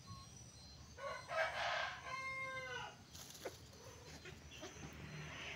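A rooster crows once, about a second in. The call lasts about two seconds: a rough start, then a held note that drops at the end.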